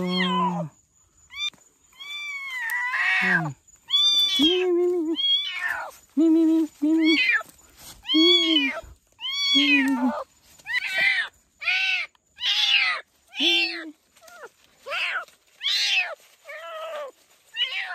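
Young kitten meowing over and over in distress while caught in a spring-wire trap: short cries that rise and fall in pitch, about one a second.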